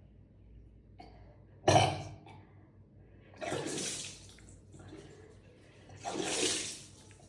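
A person retching and bringing up water in three gushes, about two seconds apart, the first the loudest and most sudden: the self-induced vomiting of kunjal kriya, in which warm salt water drunk beforehand is expelled to cleanse the stomach.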